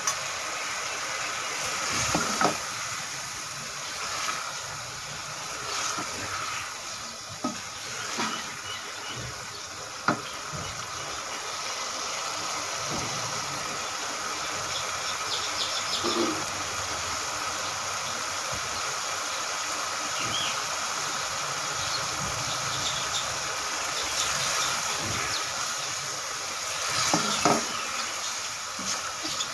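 Moong dal cooking in a metal pot with a steady sizzle. A few knocks and scrapes come from a wooden spoon stirring it against the pot, busiest near the end.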